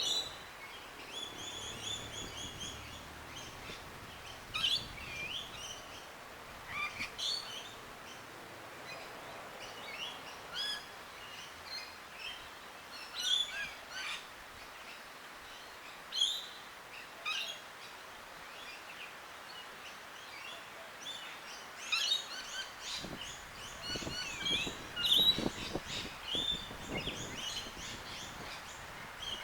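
Small birds chirping and twittering outdoors in short bursts of calls every second or two, busiest near the end, over a faint steady background hiss. A few soft low thuds come in near the end.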